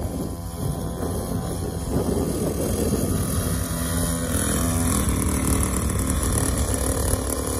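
Small kids' dirt bike engine running as the bike is ridden, growing louder from about two seconds in as it comes closer.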